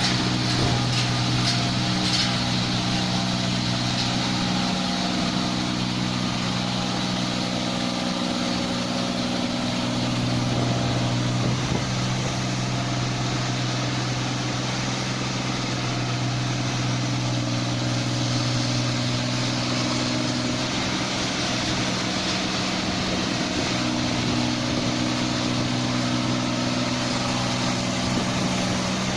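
New Holland 8070 combine harvester's diesel engine running at a steady speed, with a few light clicks in the first couple of seconds.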